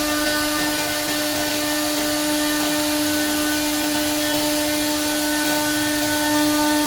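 Spindle of a Semac SM 2500A CNC router-bit jigsaw running at a steady speed: a constant high whine with a hiss of noise underneath.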